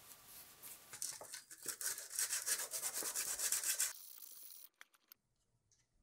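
A small piece rubbed back and forth by hand on a sheet of sandpaper, a quick run of scratchy strokes that grows louder and stops a little before the 4-second mark. A few light clicks follow about a second later.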